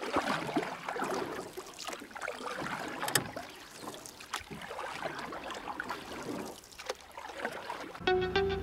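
Hot-spring bath water running and splashing, a steady rushing hiss with irregular splashes. Guitar music comes in near the end.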